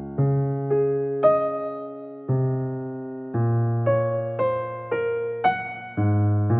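Background music: a piano piece, single melody notes struck over held low chords, each note fading after it is struck.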